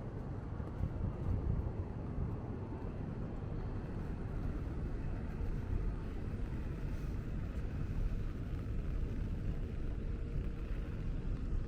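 Steady city street ambience dominated by a low traffic rumble, with a faint steady hum in the second half.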